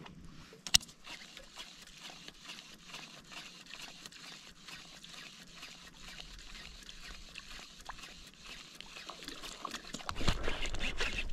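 Water trickling and lapping, with a run of many small clicks and ticks and one sharper click a little under a second in. A low rumble comes in near the end.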